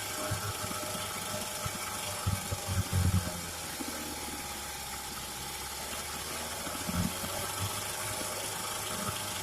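Early-1950s Goodyear Sea Bee 5 outboard motor running steadily at idle, with a few knocks about two to three seconds in and one more about seven seconds in.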